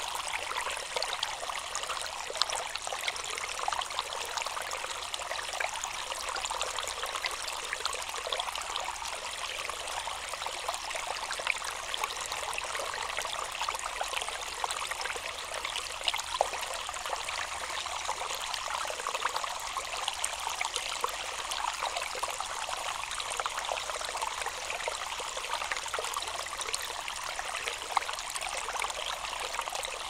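Shallow rocky stream trickling and splashing over stones: a steady, light-toned rush of water with many tiny splashes and drips through it.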